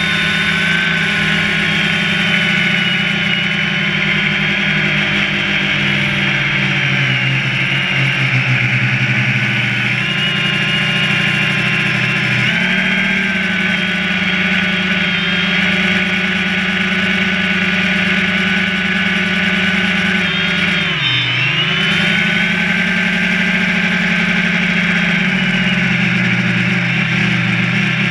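Quadcopter drone's electric motors and propellers buzzing steadily in flight, heard up close from a camera on the drone. The pitch shifts as the drone manoeuvres, with a brief sharp dip about two-thirds of the way through.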